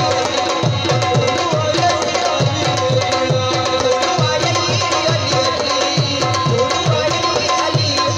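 Live Pashto folk music: a tabla keeps a brisk rhythm, its bass strokes sliding down in pitch, under a plucked rubab melody.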